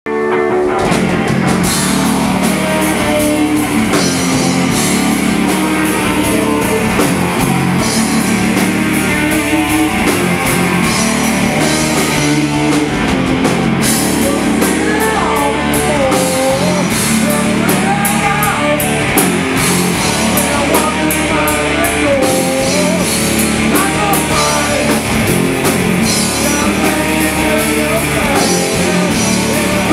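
Stoner rock band playing live: heavily distorted electric guitars over a drum kit with crashing cymbals, at a steady loud level.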